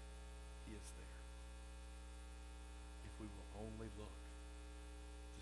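Steady electrical mains hum with a stack of even buzzing overtones, carried in the audio feed at low level.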